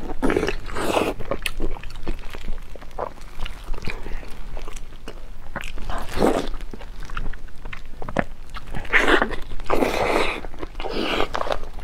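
Close-miked biting and chewing of a glazed roast held in the hands, with a few louder bites about half a second in, around six seconds, and from about nine to eleven seconds, between many small wet clicks.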